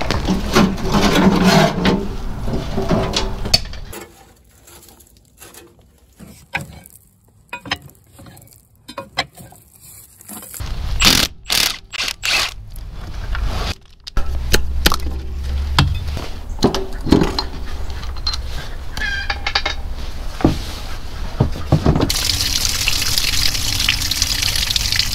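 A cordless Milwaukee power tool runs in short spurts on the starter bolts of a 1942 Farmall M between about eleven and fourteen seconds in. Near the end, water gushes out of a drain on the tractor, splashing into a plastic bucket and onto gravel.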